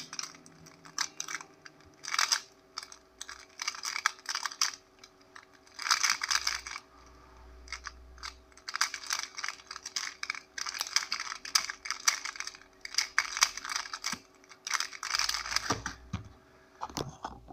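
A QiYi Square-1 puzzle being turned fast by hand: bursts of quick plastic clicking and clacking as the layers are twisted and sliced, broken by short pauses between sequences.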